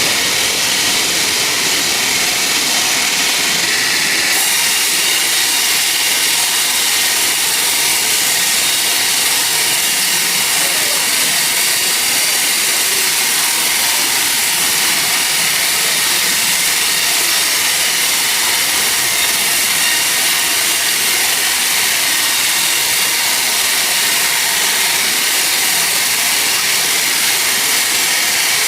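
Sawmill saw running steadily through a teak log, a loud, continuous hissing whine that stays even throughout.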